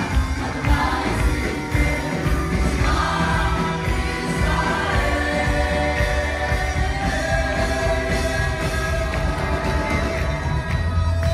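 Live amplified worship music: a band with bass and drums and singers on stage, held sung notes over a steady bass, with many voices singing along.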